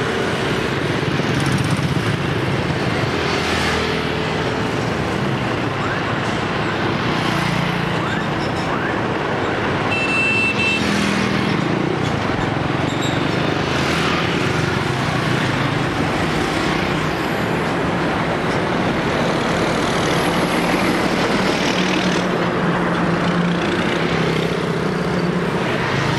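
Busy road traffic: container lorries and motorbikes passing with a steady mix of engine and tyre noise, swelling as each vehicle goes by. A short horn sounds about ten seconds in.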